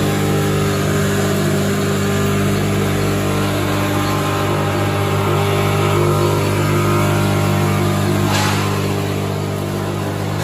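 Automatic packing line with vibratory feeder and bucket elevator running, a steady mechanical hum. A short hiss about eight seconds in.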